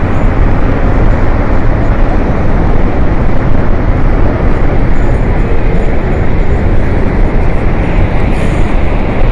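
Loud, steady roar of a flash flood: a torrent of water, mud and debris rushing down a mountain river valley after a glacier burst.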